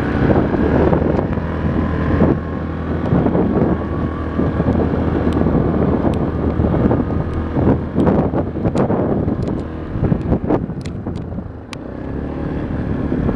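Four-wheeler (ATV) engine running as it drives across rough field ground, with wind on the microphone and scattered sharp knocks and rattles.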